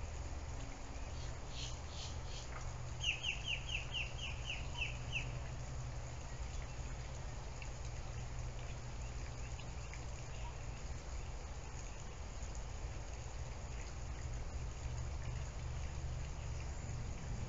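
Steady low background hum. About three seconds in, a quick run of about nine short, high chirps lasting about two seconds.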